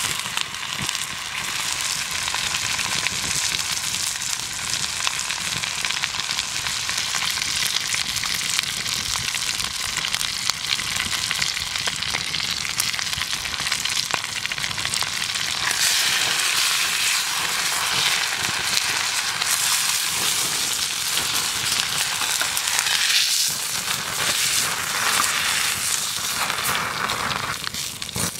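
Thick beef steak searing in foaming butter in a hot pan: a steady, crackling sizzle with louder swells in the second half. It falls away near the end as the steak is lifted out of the pan.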